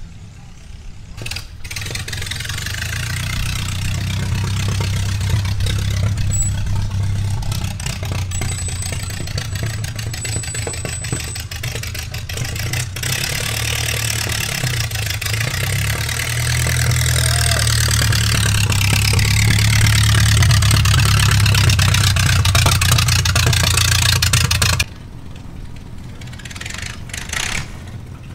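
Custom and hot rod car engines running at low speed as the cars roll past one after another, a low, steady exhaust rumble. It swells to its loudest about three-quarters of the way through, then drops away abruptly.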